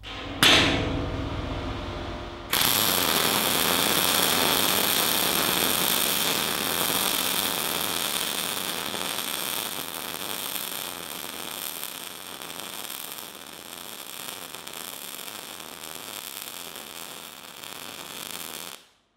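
Decapower SYNMIG-200 arc welding: a short crackling burst, then a steady crackling arc for about sixteen seconds, slowly getting quieter, that stops abruptly.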